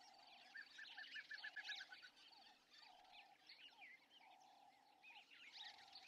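Faint outdoor wildlife ambience of many small birds chirping. A run of about eight quick repeated notes comes about half a second in, and a lower call repeats every second or so.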